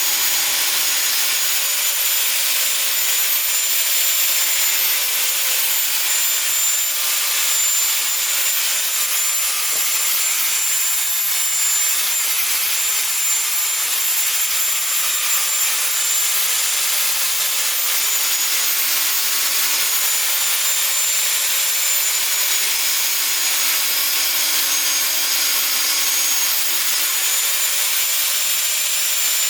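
Angle grinder cutting through 3D-printed plastic: a steady high whine over dense hiss, the whine dipping a little in pitch now and then.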